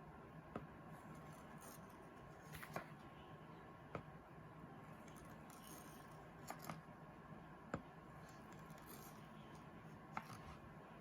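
A few light, sharp clicks and taps, about seven spread across several seconds, from cutting set tokoroten (agar seaweed jelly) into blocks, over a faint steady hum.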